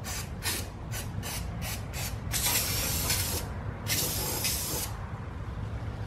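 Aerosol undercoating spray can spraying the bare metal of the frame rail. It starts with quick short squirts, about four a second, then gives two longer sprays of about a second each.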